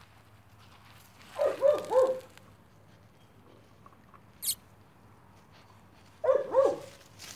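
A staghound–pit bull cross puppy gives two short runs of high yips, about three quick notes each. The first comes about a second and a half in and the second near the end. There is one sharp click in between.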